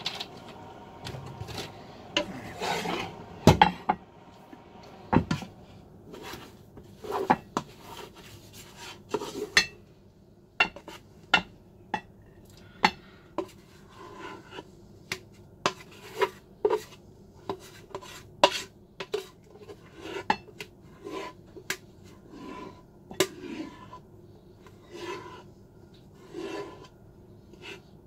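Boiled potatoes being mashed in a metal pot: a utensil knocking against the pot in irregular sharp knocks, roughly one a second, with scraping and rubbing between them.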